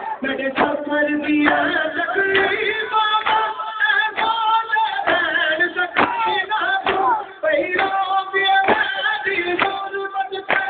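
Mourners chanting a noha lament together, with sharp slaps of matam (chest-beating) landing in a steady beat nearly twice a second.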